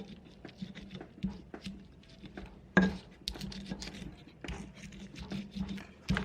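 Kitchen utensils tapping and clicking irregularly as chili, garlic and onion are prepared, with one louder knock about three seconds in, over a faint steady low hum.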